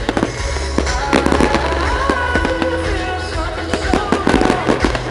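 Fireworks going off in rapid, irregular bangs and crackles over loud pop music played along with the display.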